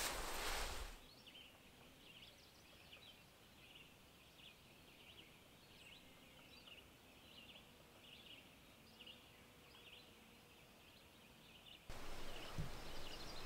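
Faint songbirds chirping, many short high notes scattered over a quiet background. A loud rushing noise cuts off about a second in, and near the end a louder rustling with a few soft knocks comes in.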